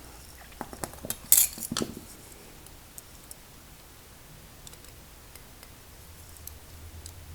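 A hand tool clicking and clinking against the small metal parts of an American Lock 1106 padlock while a C-clip is worked into place. A cluster of sharp clinks comes in the first two seconds, the loudest about a second and a half in, then only a few faint ticks.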